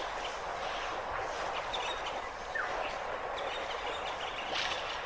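Steady outdoor background hiss with a few faint, short bird chirps, one falling in pitch about halfway through.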